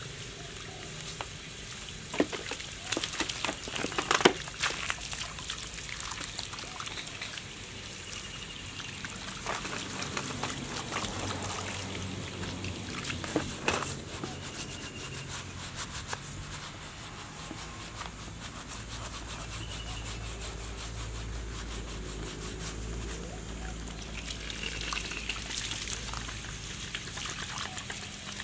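Water from a garden hose running and splashing over a petrol brush cutter as it is washed down, with a few sharp knocks as the machine is handled.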